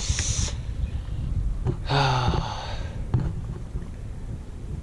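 A man lets out a breathy sigh, then a short voiced sigh with a wavering pitch about two seconds in, over a low rumble of background noise.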